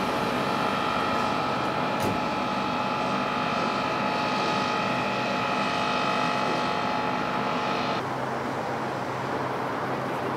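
Construction crane machinery running with a steady whine made of several fixed tones over a hum. It cuts off abruptly about eight seconds in, leaving a quieter hum.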